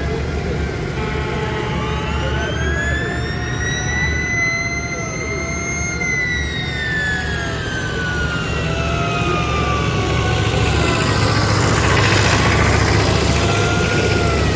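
Tractor engines running in a steady low rumble, with a siren wailing over them: its pitch climbs slowly for about six seconds, then falls away, and further rising and falling wails follow near the end.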